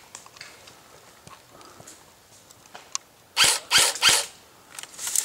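Airsoft electric rifle firing three quick semi-automatic shots, each a sharp crack with a brief mechanical whirr from the gearbox, about a third of a second apart, roughly three and a half seconds in, after a single faint click.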